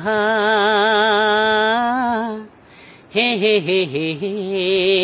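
A man singing a Hindi love song unaccompanied. He holds a long note with vibrato, breaks off for a moment, then sings a quick run of short notes into another long wavering note.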